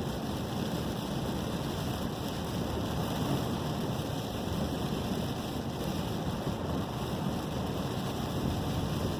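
Steady wind and light rain ahead of a hurricane: a continuous rushing noise, heaviest in the low end, with wind buffeting the microphone.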